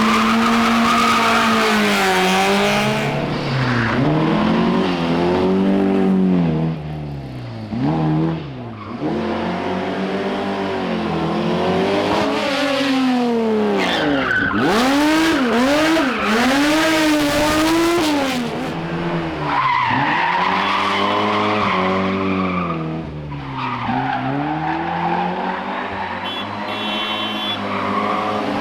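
Historic rally cars on a special stage, engines revving hard, pitch climbing and dropping again and again through gear changes and lifts off the throttle.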